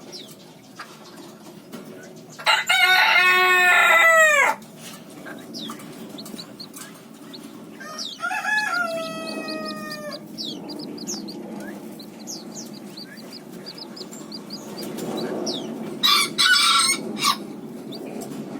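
A rooster crowing: one loud, long crow a few seconds in, a fainter crow about halfway, and a shorter loud call near the end, with faint high peeps in between.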